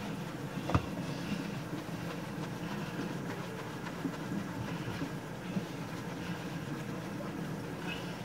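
Hands scrubbing and lathering wet, shampooed hair over a sink, with a wet squishing, over a steady low rumble. There is one sharp knock about a second in.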